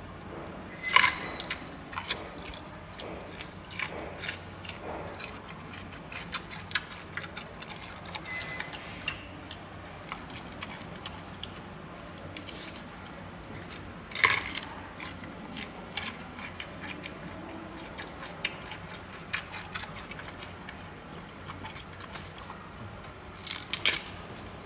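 Giant panda biting and chewing a bamboo shoot: a run of small crisp crunches, with louder snaps about a second in, about halfway through and near the end.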